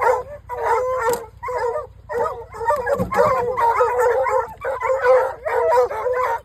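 Several hunting hounds barking and howling excitedly, many short calls overlapping with hardly a break. A steady low rumble runs underneath.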